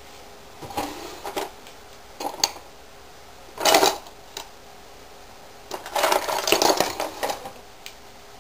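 Small metal friction-tuner parts (screws, buttons, shafts) clinking and rattling as they are handled and fitted, in several short bursts with the loudest about four seconds in and a busy cluster of clinks around six to seven seconds.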